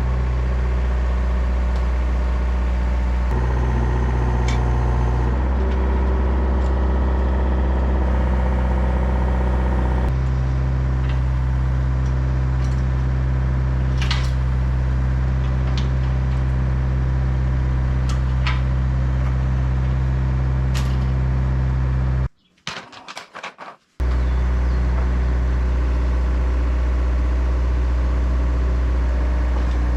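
Case 170B excavator's diesel engine running steadily, with a few sharp clanks over it. The engine sound cuts out briefly about two-thirds of the way through, then resumes.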